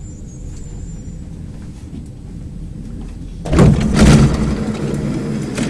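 Stockholm Metro C20 train running with a steady low rumble; about three and a half seconds in, a sudden, much louder rush of noise sets in and stays loud.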